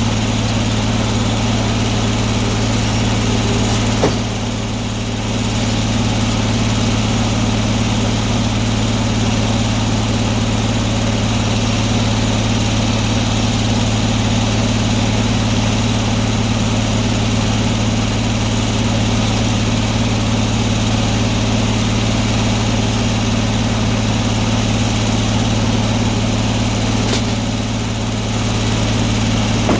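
Antique sawmill's engine running at a steady speed, a constant low hum, with a short click about four seconds in.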